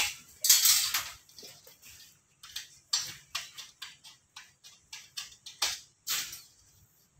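Thin sheet-metal insulation cladding segments being flexed and handled: irregular crinkly clicks and rattles, with louder rustling swishes about half a second in, around three seconds in and just before six seconds.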